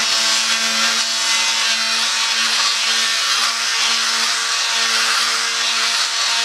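Handheld power sander running steadily with a Scotch-Brite pad scrubbing over a fly-cut brass plate, taking off the fuzz left by the cutter. It makes an even hum under a strong hiss.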